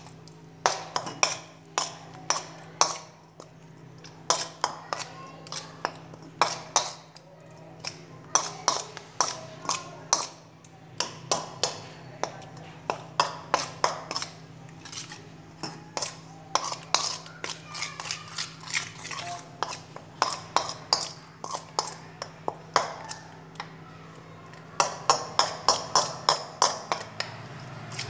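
A metal spoon clinking and scraping against a steel bowl as food is mixed in it, in irregular strokes that quicken to about four a second near the end.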